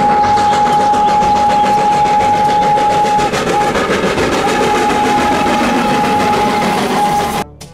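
A locomotive dressed as Thomas the Tank Engine sounding its whistle in long, steady blasts, broken briefly a little over three seconds in, over the rumble of the moving train. The sound cuts off abruptly near the end.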